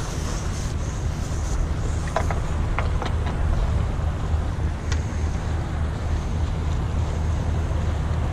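Steady low drone of a passing river barge's diesel engine, with a few light clicks about two to three seconds in.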